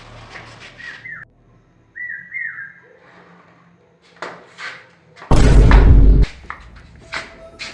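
A few short, high whistled chirps that slide down in pitch, then about five seconds in a very loud, heavy boom lasting about a second.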